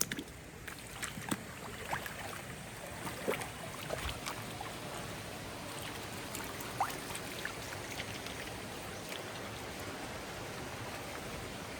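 Steady rush of flowing water, with scattered short clicks through the first several seconds.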